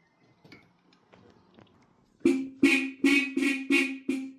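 Horn of a 1929 Bugatti Type 43A sounding in a quick series of about six short honks at a steady pitch, starting about two seconds in. It sounds only intermittently because of a bad earth path through the steering column bearing.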